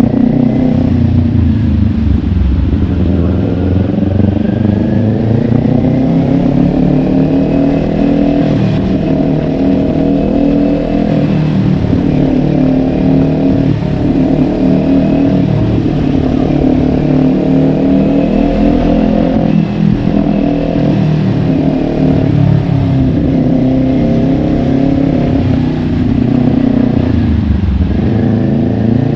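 Kawasaki Ninja 400's parallel-twin engine under way. The revs drop in the first couple of seconds, climb steadily, then ease off and pick up again several times.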